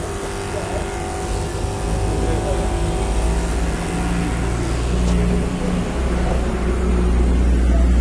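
Small electric diaphragm water pump of a portable car-washing sprayer running with a steady hum, drawing water from a bucket through its suction hose. The hum grows a little louder in the second half.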